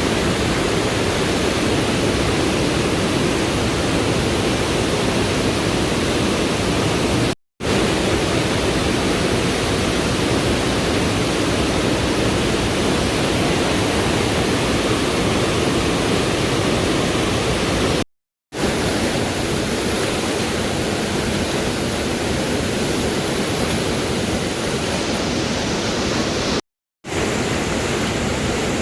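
Steady rushing of a fast mountain river close by. It breaks off to dead silence for a split second three times.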